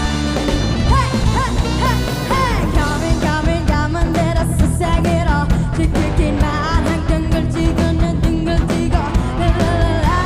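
Live band playing a K-pop cover song with a steady beat, a singer's voice carrying the melody over it.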